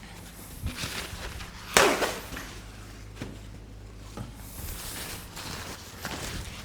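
Manual rib mobilisation on a patient's oiled back: one sudden loud thump about two seconds in, with softer knocks and rubbing before and after.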